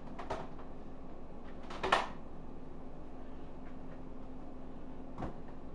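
A few light knocks and clicks of kitchen items being handled, the loudest cluster about two seconds in and a single knock near the end, over a steady low hum.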